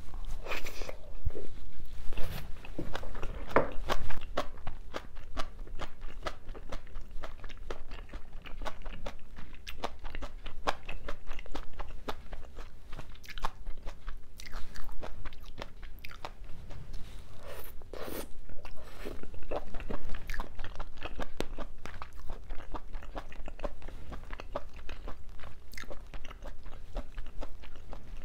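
A person chewing a mouthful of crunchy bean sprouts and seafood, a steady run of crisp, irregular crunches.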